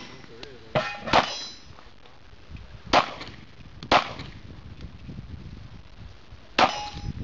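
Pistol shots fired one at a time on a USPSA stage, five in all at uneven spacing with pauses between, several followed by the brief ring of steel targets being hit.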